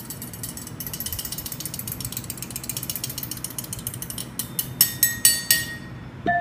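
Metal fork tines scraped rapidly against a spoon, making a fast, even ratchet-like run of clicks. About four and a half seconds in, it changes to a few louder clinks of spoon on fork that ring briefly.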